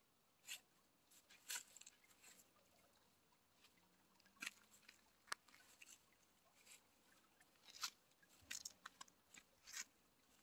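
Faint, scattered crackles and rustles of dry grass and stalks being trodden and pushed through, a dozen or so short snaps spread unevenly over the few seconds.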